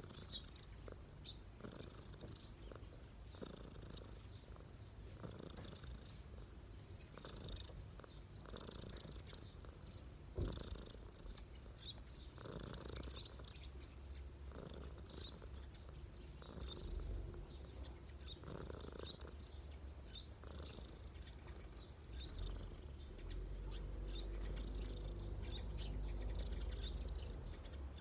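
Domestic cat purring steadily while its chin is scratched, the purr swelling and fading with each breath. A single brief knock about ten seconds in.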